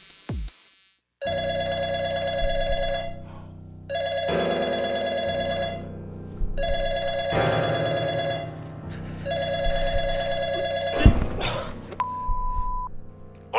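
Landline telephone ringing four times, each ring about two seconds long with short pauses between. Near the end a sharp click, then a short steady beep.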